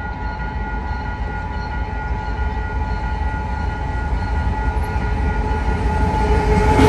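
Canadian Pacific freight train approaching a level crossing: a low rumble that grows steadily louder, with steady high ringing tones over it, and a jump in loudness near the end as the locomotive reaches the crossing.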